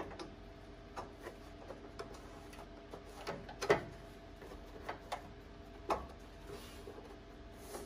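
Light, scattered clicks and taps of plastic bumper grille inserts being pressed and snapped into place, with some rubbing of plastic on plastic; the loudest click comes a little before four seconds in.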